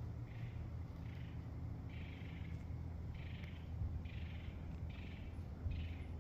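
An animal in the woods giving a string of harsh, scratchy calls, a little more than one a second, over a steady low rumble.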